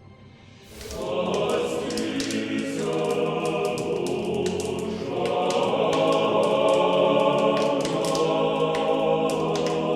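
Choir singing sustained chords, starting about a second in.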